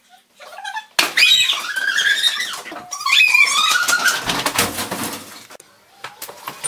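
Girls' voices sped up to a high chipmunk-like pitch, in long squealing cries that glide up and down.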